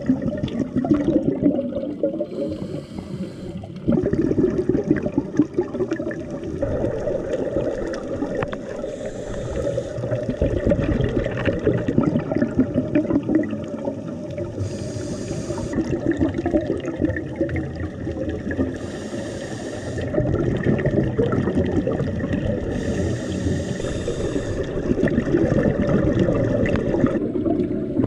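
Scuba divers breathing through regulators underwater: a short hiss of inhalation about every four to five seconds, five times in all, with the steady bubbling of exhaled air between.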